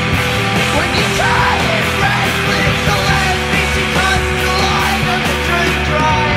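Loud alternative rock music: a full band led by electric guitars playing a dense instrumental passage.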